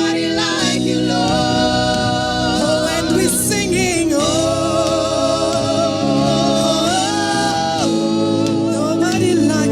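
Gospel worship singing in long held notes with vibrato, over steady sustained accompaniment.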